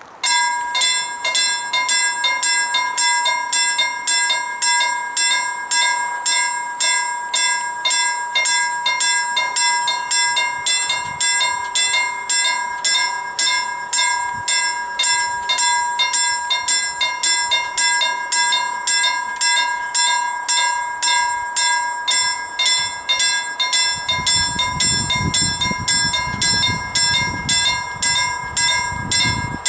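Level crossing warning bell starting suddenly and ringing in rapid, even strokes, warning that a train is approaching. A low rumble joins near the end.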